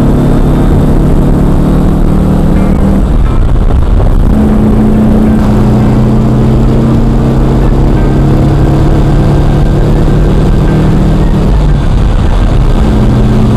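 1968 Porsche 912's air-cooled 1600cc flat-four running under load while driving, heard inside the cabin, held at higher revs in the lower gears. Its note breaks off and picks up again about three seconds in and near the end.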